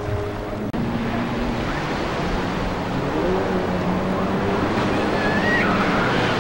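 Stand-up jet ski engine running steadily, then, less than a second in, an abrupt change to the noise of breaking surf and wind with the engine running underneath.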